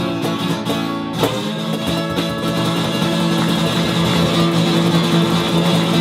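Acoustic guitar strummed with cajón accompaniment in an instrumental blues passage, with a sharp accent about a second in and chords ringing on after it.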